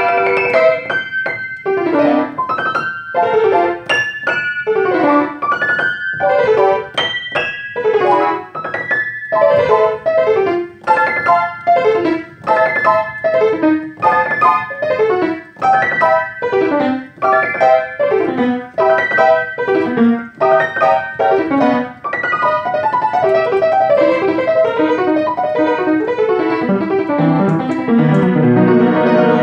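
Solo piano étude played fast: a long series of quick descending runs, about one a second, then busier, denser passagework with low bass notes coming in near the end.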